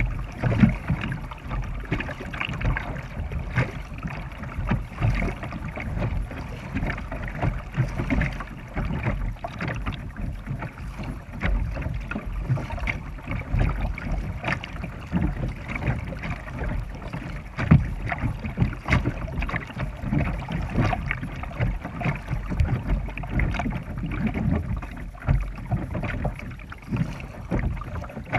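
Kayak paddling: a double-bladed paddle dipping into the river, stroke after stroke, with splashing and water washing along the hull.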